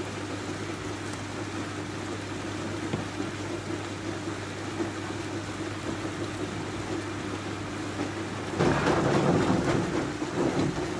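Hollander beater running, its motor humming steadily and its roll churning the water in the tub. About two-thirds of the way in, a louder, rougher thumping sets in: the cotton rag going under the beater roll.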